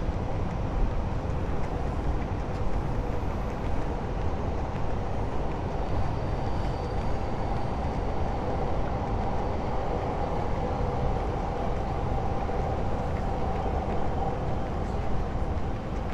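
Steady vehicle rumble with a humming tone that grows stronger about six seconds in and holds for most of the rest.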